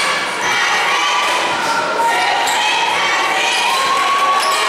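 Spectators and players calling out during a basketball game, many voices at once, with a basketball bouncing on the hardwood court.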